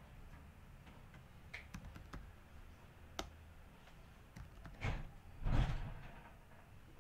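Computer keyboard typing: a few scattered key clicks, then two louder, longer thumps about five seconds in.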